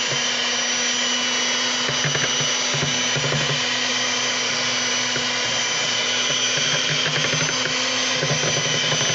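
Electric hand mixer running steadily, its beaters creaming butter and sugar in a mixing bowl.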